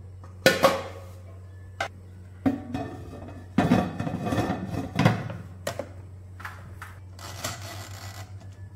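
Halogen convection oven being closed and set: plastic and glass clunks and knocks as the lid unit goes onto the glass bowl and its handle is pressed down, then a short scrape of the timer knob being turned near the end, over a steady low hum.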